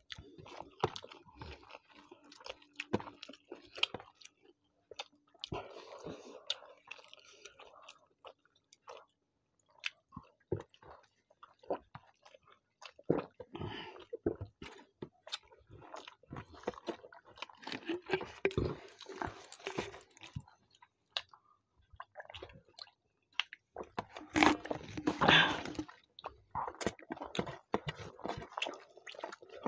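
Close-up chewing and wet mouth clicks of two people eating rice with chicken curry by hand, with fingers working the food on steel plates; the chewing comes in bouts, the loudest a couple of seconds long near the end.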